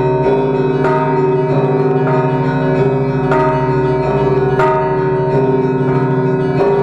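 Orthodox monastery church bells being rung: several bells struck in quick succession, about every half-second or so, their tones ringing on and overlapping.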